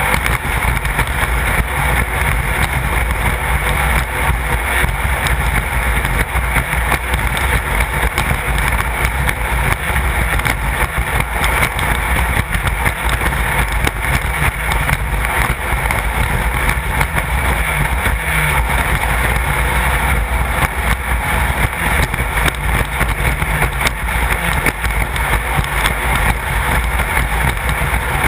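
Class 1/2-1600 off-road race car running, its air-cooled VW flat-four engine loud and steady with no clear revving up or down.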